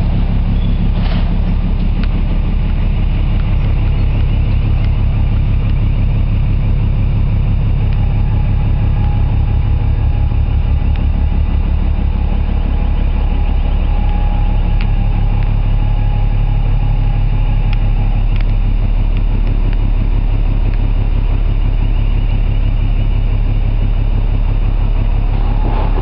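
Ship's diesel machinery running steadily: a deep, pulsing hum, with a faint higher whine from about 8 to 18 seconds in.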